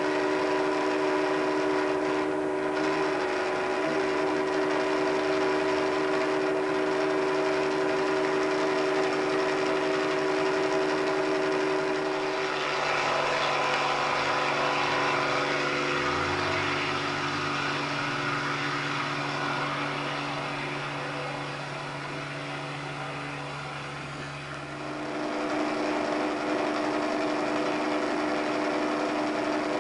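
Steady drone of a helicopter's engine and rotor heard from inside the cabin: a hum of several steady tones over rushing noise. Its pitch shifts about halfway through, and it dips slightly before shifting again near the end.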